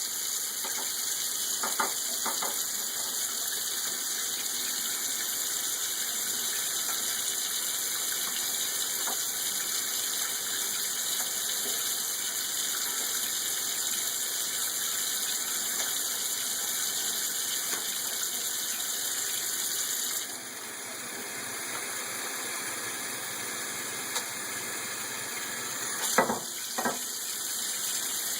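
Water running steadily from a tap while a quaker parrot bathes in it. The sound of the flow changes about two-thirds of the way through, and a few short sharp knocks or splashes come near the start and near the end.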